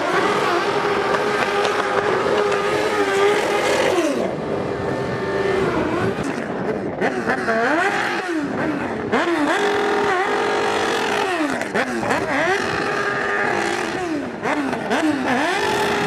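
Sport motorcycle engine held at high revs during a rear-tyre burnout. About four seconds in, the revs begin dropping and climbing back up again and again.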